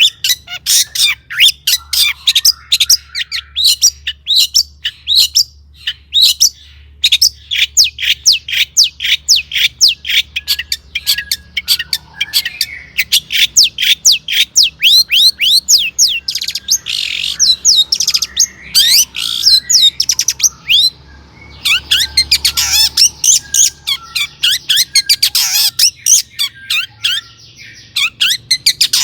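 Long-tailed shrike (cendet) in full song: a rapid, unbroken chatter of sharp, high, sweeping notes, several a second, broken by short pauses about a quarter of the way in and about two-thirds through.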